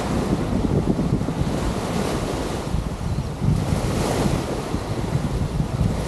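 Wind buffeting the microphone over the wash of surf on the beach, with a hiss swelling up about four seconds in.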